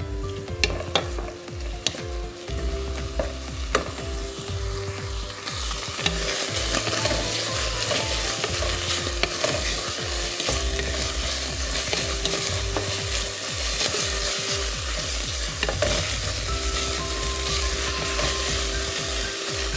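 Flaked tuna and chopped vegetables sizzling in oil in a metal pot as a wooden spoon stirs and scrapes through them, with a few sharp knocks of the spoon against the pot in the first few seconds. The sizzle grows louder about five seconds in.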